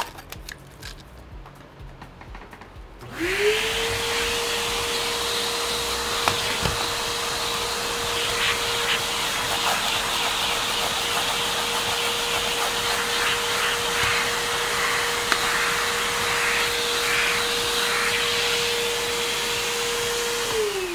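Vacuum cleaner with a brush attachment switching on about three seconds in, its motor spinning up to a steady pitch with a loud hiss as it is worked over a laptop keyboard, then switching off and winding down with a falling tone near the end.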